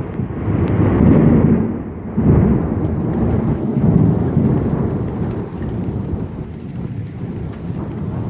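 Thunder rumbling low and long, swelling again about two seconds in and then slowly dying away, with steady rain and scattered drips underneath.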